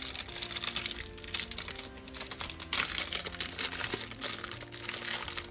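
Clear plastic sleeve of round crackers crinkling as it is pulled open and the stack slid out, over background music with sustained notes.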